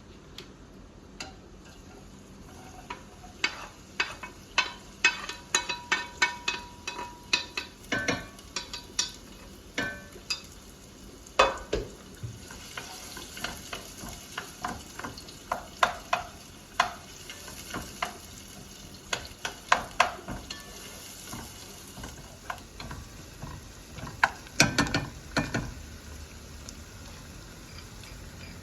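Food frying in a pan, with a utensil stirring and knocking against the pan in many irregular sharp clicks over a light sizzle.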